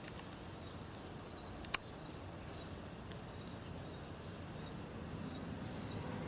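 Faint, steady outdoor background noise with one sharp click about two seconds in.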